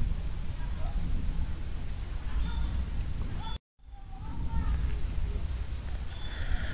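A cricket chirping in a steady stream of fast, regular, high-pitched pulses over a low background rumble. All sound drops out for a moment a little past halfway.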